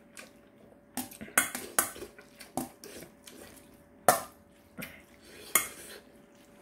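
Metal chopsticks clinking against a stainless steel bowl, about seven sharp clinks at irregular intervals.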